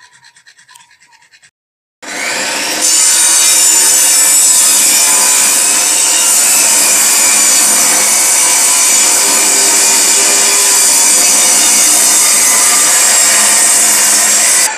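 Benchtop table saw running and cutting through a wooden pallet slat at a bevel of about 36 degrees. It starts about two seconds in, holds a steady pitch throughout the cut, and cuts off suddenly just before the end.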